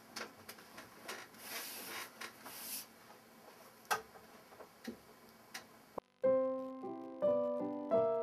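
Rustling and a few sharp clicks for about six seconds, then piano notes played on a digital keyboard begin: a melody of separate notes and chords, each struck and ringing away.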